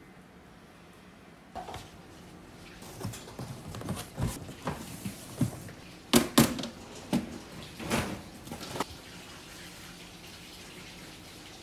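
Hollow plastic hood and tray of a Deo-Toilet cat litter box knocking and scraping against each other and the cardboard carton as they are lifted out. An irregular string of knocks starts about a second and a half in, the loudest two close together about six seconds in, and it dies down near the end.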